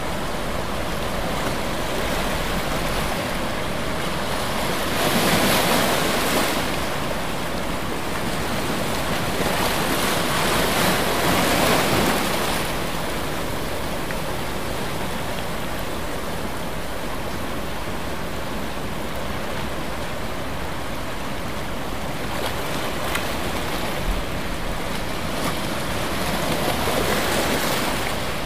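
Ocean surf: a steady wash of water noise that swells as waves break, about five seconds in, again around ten to twelve seconds, and once more near the end.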